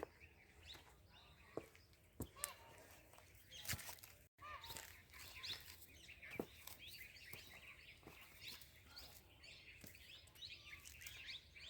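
Faint birdsong: many small birds chirping and twittering, with a few sharp clicks. The sound drops out completely for a split second a little after the fourth second.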